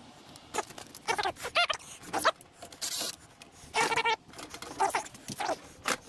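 Screws squeaking as a screwdriver turns them out of a 1975 Tappan microwave oven's metal casing: about eight short, pitched squeals that bend in pitch, with a brief scrape about halfway.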